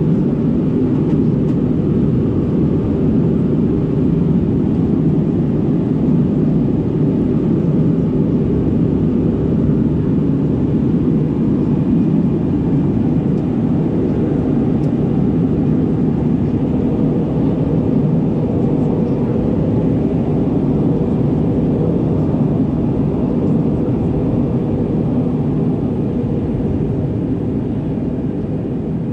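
Steady cabin drone of an Airbus A319-111 in flight, a low rushing mix of CFM56 engine noise and airflow heard from a window seat. It eases off slightly near the end.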